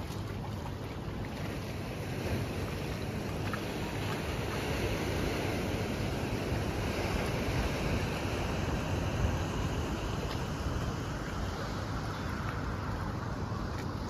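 Steady wind on the microphone over the wash of sea water against the rock jetty.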